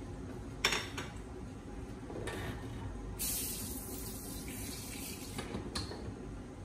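Water running from a tap for about two seconds, with a sharp click before it and a few knocks after.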